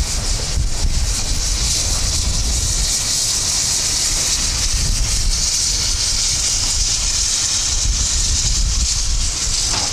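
Steam locomotives letting off steam: a steady high hiss that grows stronger a few seconds in, over a low rumble.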